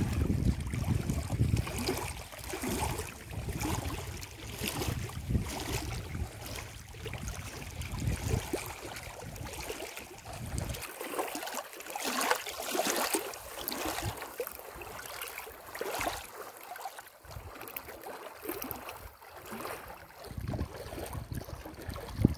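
Choppy water lapping and splashing on a reservoir, an uneven wash. Wind buffets the microphone as a low rumble that drops away about halfway through and comes back near the end.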